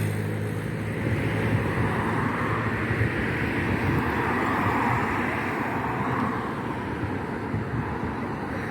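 Steady outdoor street noise: traffic rumbling with wind on the microphone, and no clear firework bangs.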